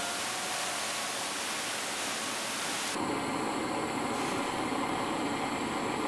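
Steady rushing noise with no rhythm or pitch. About halfway through it changes tone, with less hiss at the top and more in the middle, and it cuts off suddenly at the end.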